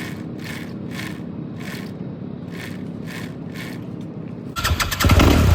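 Yamaha dirt bike engine being cranked over without catching, a steady hum with a rhythmic pulse about twice a second. It is a hard-starting bike that the riders think needs starting fluid. About four and a half seconds in comes a sudden loud burst of sound.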